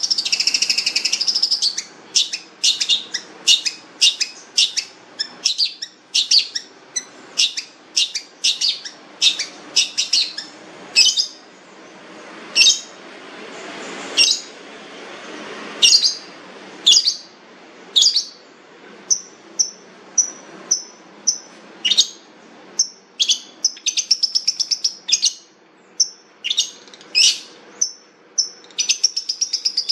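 Long-tailed shrike (cendet) calling: sharp, short high notes about once a second, broken by fast chattering trills at the start and again near the end.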